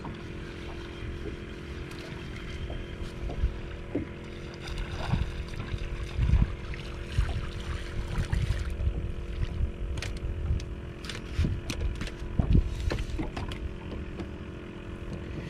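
A small speckled trout being reeled in on a spinning rod and splashing at the surface beside a boat, over a steady low hum from the boat and a fluctuating low rumble. Scattered clicks and knocks come thicker in the second half as the fish is brought aboard, with dull thumps about six seconds in and again about twelve seconds in.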